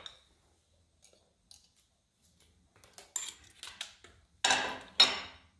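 Light metallic clicks and clinks of a compression tester's fitting and hose being threaded into an engine's spark plug hole and handled, with two louder sharp clatters near the end.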